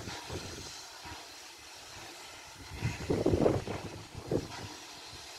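Pt47 steam locomotive working in the distance, heard as uneven puffs of exhaust and steam that swell about three seconds in, over a steady hiss. Wind is buffeting the phone's microphone.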